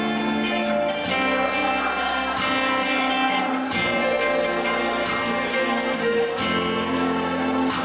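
Live worship music: a band with guitar and percussion playing held chords under singing voices.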